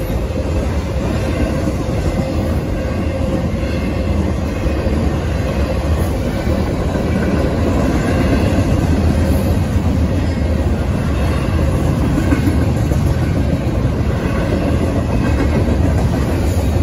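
Intermodal freight train cars rolling past over a grade crossing: a steady, loud rumble of wheels on the rails with clickety-clack over the rail joints.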